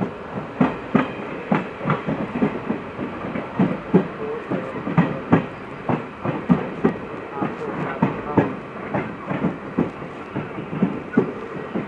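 Passenger coach wheels clattering over rail joints while the train runs at speed: a continuous, uneven run of sharp clicks and knocks, several a second, over a steady rolling rumble.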